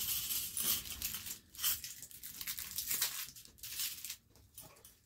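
Packaging crinkling and tearing as an item is handled and opened, crackling on and off and dying down near the end.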